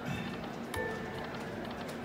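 Lightning Cash Magic Pearl video slot machine playing its electronic music and short chime tones while the reels spin.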